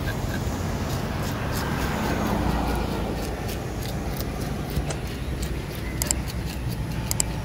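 Steady low rumble of road traffic, with short scraping clicks of a metal fish scaler rasping scales off a tilapia on a wooden chopping block.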